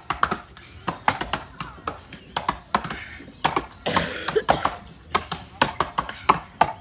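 Axes chopping into 250 mm (10-inch) standing blocks, several choppers going at once: sharp, irregular chops several times a second.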